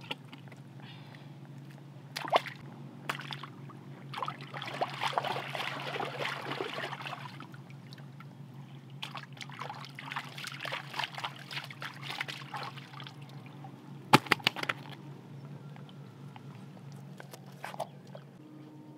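Shallow muddy water sloshing and splashing as hands grab a large plecostomus catfish, in two longer bouts. A few sharp knocks, the loudest cluster about fourteen seconds in, over a steady low hum.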